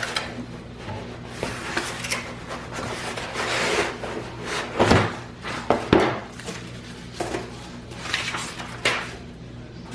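Cardboard box being unpacked: rustling and scraping as books and packing material are handled, with two heavier thuds about five and six seconds in as books are set down.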